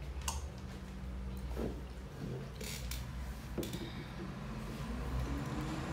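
A few light clicks and knocks of plastic cups and plates on a table as children eat breakfast, over a steady low hum.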